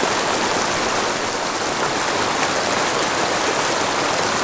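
Small mountain creek rushing over a rocky bed and small cascades: a steady, even rush of water.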